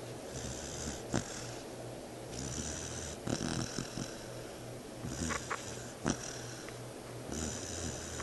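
Four-month-old pit bull puppy snoring in deep sleep, a low rasping snore on each breath about every two seconds. A couple of short sharp clicks fall between the breaths.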